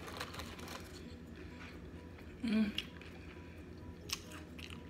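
Tortilla chips crackling and clicking faintly as fingers dig through a plate of cheesy nachos and pull out a loaded chip. A short hum of voice comes about halfway through.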